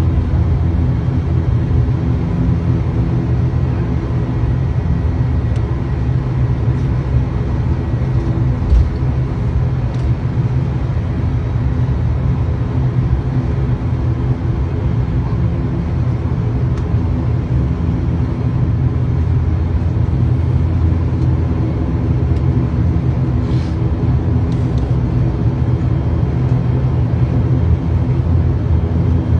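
ATR 72-500's Pratt & Whitney PW127 turboprop engines and six-blade propellers running steadily: a loud, even low drone with a steady multi-tone hum over it.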